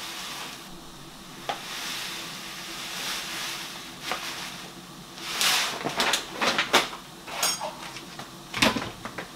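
Dry rolled oats pouring from a plastic bag into a glass blender jug, a steady grainy rustling hiss. About halfway through it gives way to a run of sharp clicks and knocks as the bag and jug are handled.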